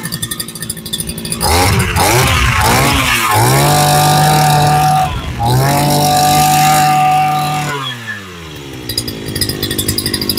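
A 44cc two-stroke 541-type brush cutter engine idling, then revved with a few quick throttle blips and held at high revs twice for a couple of seconds each, with a short dip between, before falling back to idle near the end.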